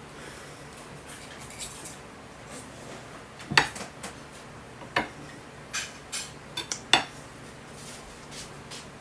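Knife and fork clinking against a plate while a steak is cut: a scatter of sharp clinks, the loudest about three and a half seconds in and again near seven seconds.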